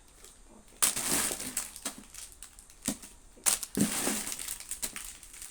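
Wrapped chocolates and their packaging being handled, with crinkling rustles in two main bursts, about a second in and again around three and a half seconds in, and small clicks between.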